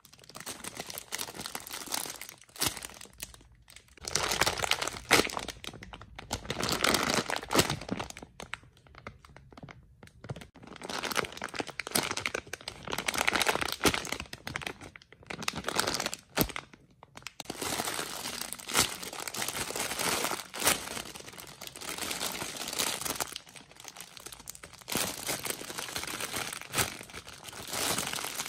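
Plastic packaging crinkling and rustling in irregular spells, broken by a few short pauses, as squishies in their plastic bags are handled.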